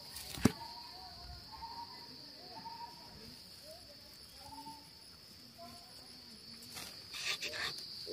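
A steady high-pitched insect drone. About half a second in there is one sharp click as the hooked metal digging tool scrapes into the soil, and near the end there are a few bursts of rustling through the grass.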